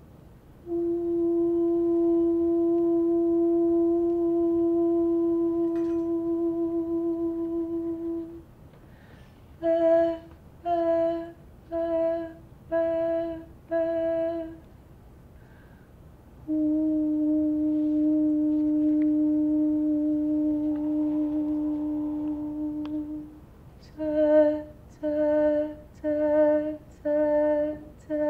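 A woman's voice sings a long, steady, held note for about eight seconds, then five short notes on the same pitch. It then holds another long note a little lower for about seven seconds, followed by five more short notes.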